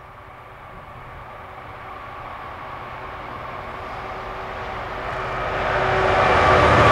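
Two Freightliner Class 66 diesel locomotives, with EMD two-stroke V12 engines, running at the head of a stone train hauling hopper wagons. The engines' steady drone grows louder as they approach, swelling most after about five seconds as the locomotives draw level.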